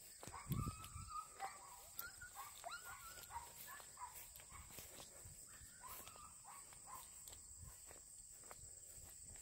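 Faint birdsong: short chirps and whistled notes, rising and falling, over a steady high-pitched insect buzz.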